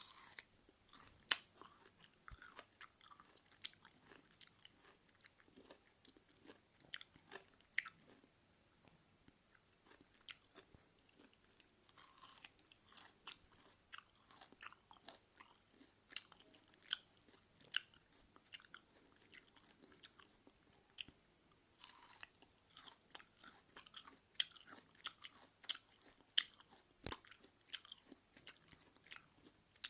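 A person chewing food close to the microphone: irregular crunching bites and sharp wet mouth clicks, with denser crunchy stretches about twelve seconds in and again about twenty-two seconds in.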